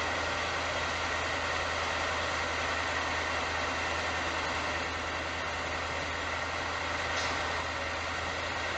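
Heavy KAMAZ truck's diesel engine running steadily: a low drone under an even rushing noise.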